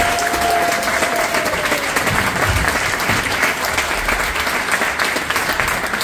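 Live theatre audience applauding at the end of a show, dense steady clapping that tapers off slightly near the end.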